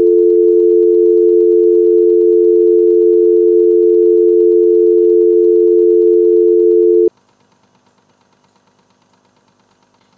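Telephone dial tone: the steady two-tone North American dial tone, held without a break, then cut off abruptly about seven seconds in.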